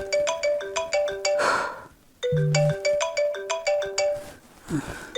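Phone ringtone: a short, marimba-like melody repeating about every three seconds, signalling an incoming call.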